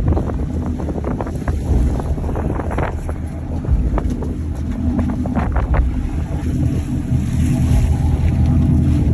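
Low rumble of a fishing boat underway, with wind buffeting the microphone and several short knocks in the first half.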